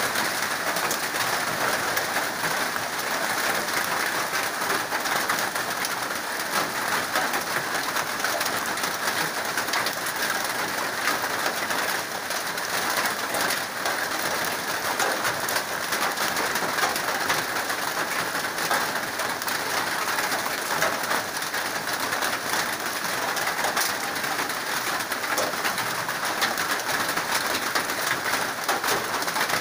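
Steady rain falling on a corrugated metal roof, an even hiss of drops.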